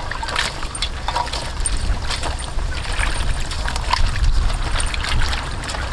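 Water sloshing and splashing in an aluminium bowl as hands rub and rinse a bundle of yardlong beans, in many short, irregular splashes. A steady low rumble runs underneath.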